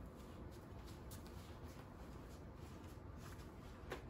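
Quiet room tone with faint rustling and one soft click or tap near the end.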